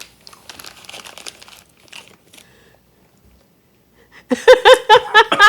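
Faint crunching of peanuts being chewed. About a second before the end, loud rhythmic laughter starts in quick even bursts.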